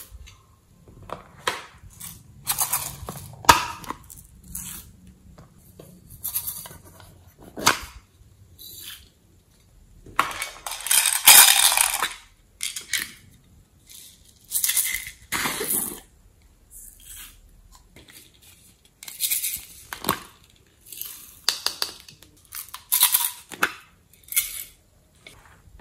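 Hands handling small plastic slime containers and clay pieces over a tray of glittery slime, making irregular bursts of rustling and sharp clicks, with the longest burst about ten seconds in.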